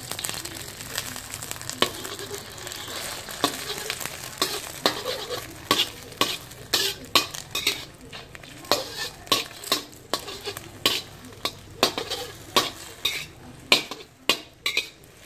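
An egg frying in oil in a stainless steel wok, sizzling, while a metal spatula scrapes and taps against the pan to break it up. The scrapes and taps come more often in the second half.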